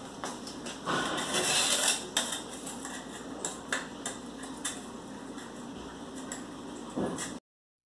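A thin metal tool scraping and scratching along the grout joints between ceramic floor tiles, raking out the joints to prepare them for regrouting. It is a run of short scrapes, loudest about a second in, and it cuts off suddenly shortly before the end.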